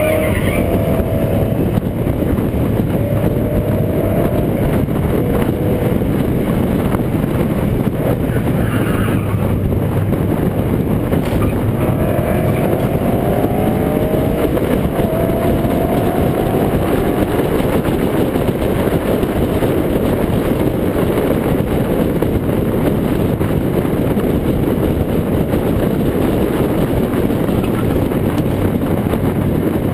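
Steady roar of wind and tyre noise picked up by a camera mounted low on the front of a car driven hard on a winding road. A faint engine note rises under acceleration a few times, mostly around twelve to seventeen seconds in.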